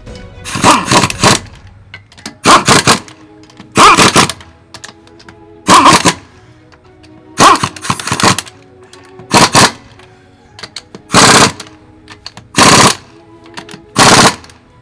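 Pneumatic impact wrench hammering on wheel lug nuts in short bursts, about nine of them roughly a second and a half apart, over faint background music.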